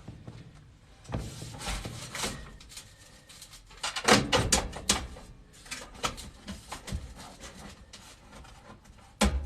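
Sheet-metal parts of a gas furnace being handled and fitted back in place: scattered clicks and rattles, a burst of loud metal knocking and clattering about four seconds in, and one sharp knock near the end.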